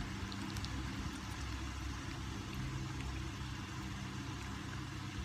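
Steady low mechanical hum with a constant droning tone, like a motor or engine running, and a couple of faint light ticks under a second in.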